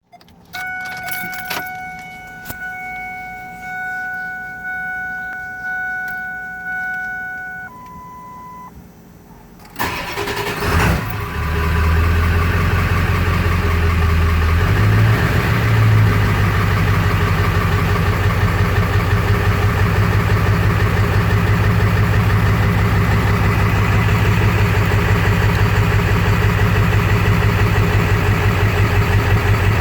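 A car's steady electronic warning tone, swelling and fading, then a short higher beep. About ten seconds in, the engine cranks and catches, revs briefly and settles into a rough idle just after start, with 230cc injectors on a tune that is still being dialled in.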